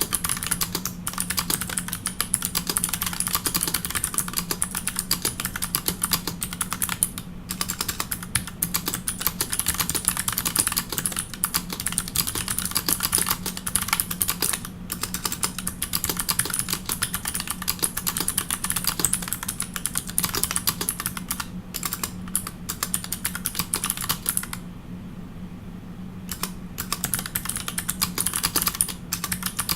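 Fast, continuous typing on a Pearl 40% mechanical keyboard with custom clicky MX-style switches and GMK keycaps: a rapid stream of sharp clicks from the keys. About 25 seconds in the typing stops for a second or two, then resumes.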